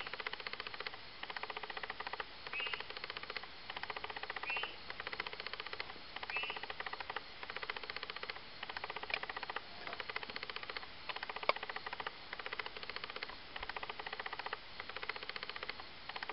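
Short whistled 'whitt' notes, repeated about every two seconds and heard four times in the first seven seconds, which the recordist takes for a male spotted crake's call. Behind them runs a dense chorus of rapid rattling trills in bursts of about a second, with a couple of sharp clicks later on.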